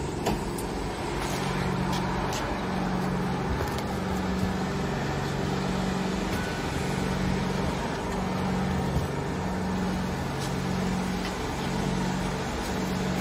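Shrink-film packing machine's heat tunnel and roller conveyor running, a steady mechanical hum whose low tone switches back and forth between two pitches about once a second, with a few faint clicks.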